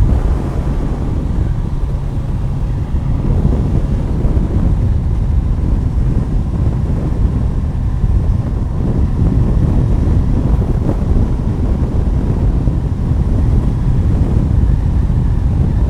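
Wind rushing over the microphone of a moving motorcycle: a loud, steady low rumble with no let-up, the ride's engine and road noise buried in it.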